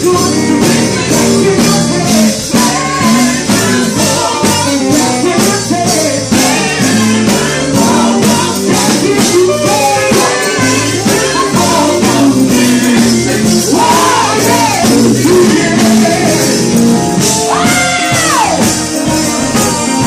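A gospel vocal group singing live into microphones over amplified band accompaniment with a steady beat. Near the end one voice sweeps up high and back down.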